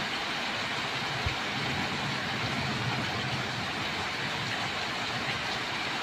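Heavy thunderstorm rain pouring down steadily, with a single low thud a little over a second in.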